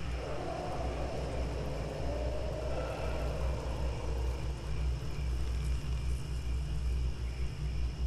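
Wind in a spooky night-forest ambience: a steady low rumble with a long gust that swells in just after the start, then slowly drops in pitch and fades away over about six seconds.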